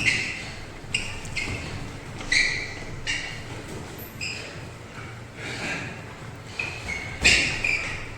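Boxing sparring: a series of short, sharp hits and scuffs, irregular and about once a second, from gloved punches and footwork on the gym floor.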